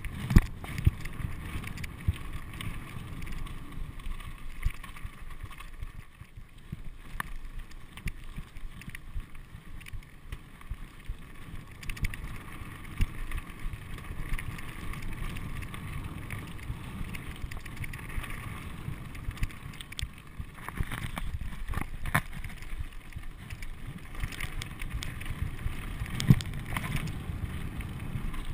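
Mountain bike rolling fast over a rocky, gravelly dirt trail: steady tyre and trail noise with a low rumble, broken by frequent sharp knocks and rattles as the bike hits rocks and bumps.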